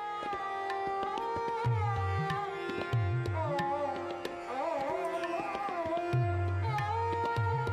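Indian classical-style instrumental music: tabla drumming under a melody that bends and slides between held notes.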